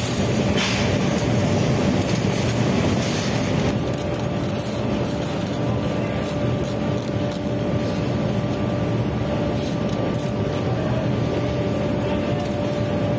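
Steady mechanical drone of glass bangle workshop machinery, with a constant hum tone running through it.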